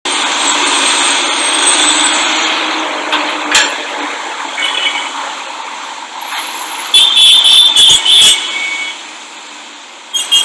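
Street traffic: steady noise of passing vehicles that slowly fades. A cluster of several short, loud sounds comes about seven to eight seconds in.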